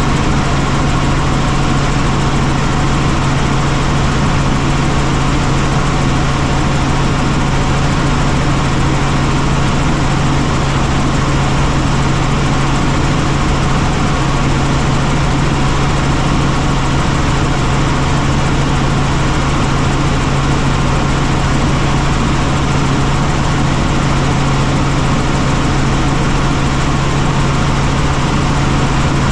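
A helicopter's engine and rotors running steadily, a constant loud noise with a strong low hum underneath that does not change.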